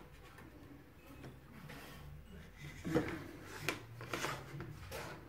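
Faint kitchen handling noises: a few light clicks and knocks from about three seconds in, over a quiet low background.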